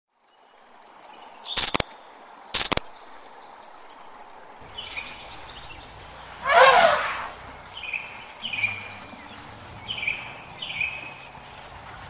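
Intro sound effects: two sharp clicks about a second apart, then short chirps repeating over a low hum, with a loud whoosh about six and a half seconds in.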